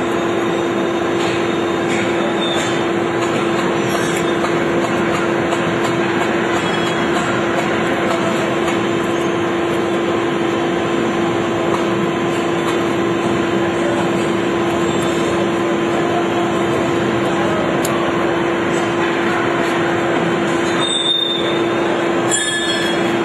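A large machine running steadily: a constant whine held at one pitch over a dense mechanical noise, unchanged throughout.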